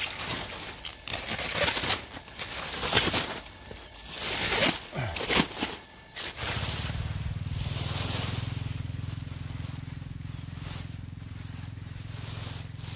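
Loud, irregular rustling and crackling of a plastic sheet and straw as the cover is pulled back over a straw mushroom bed. At about six and a half seconds a steady low hum starts suddenly and holds an even level.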